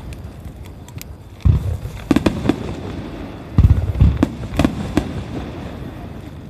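Starmine fireworks: aerial shells bursting in quick succession with deep booms and sharp cracks, a cluster about one and a half to two and a half seconds in and a heavier run of bursts from about three and a half to five seconds in.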